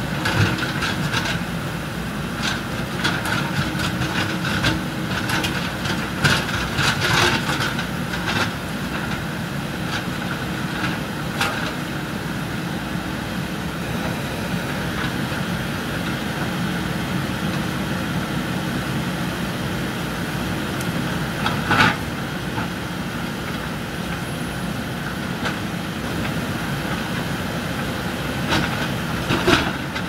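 JCB 3DX backhoe loaders' diesel engines running steadily under load while the bucket works at a concrete culvert slab, with sharp clanks of concrete and rubble: a cluster of knocks early on the first third and one loud knock about two-thirds of the way through.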